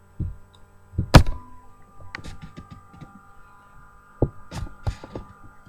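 Handling noise near the microphone: a few short knocks and thumps, the loudest about a second in, with lighter clicks and taps after it as the spoon and food are passed over.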